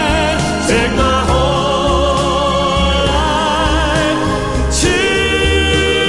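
Background music: a slow song whose melody is carried in long held notes with a wavering vibrato over a steady bass line.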